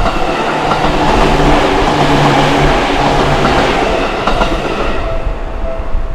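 Electric train passing close over a level crossing, its wheels clattering over the rail joints, with a low hum through the middle of the pass. The crossing's two-tone warning bell rings near the start and again near the end, drowned out while the train goes by.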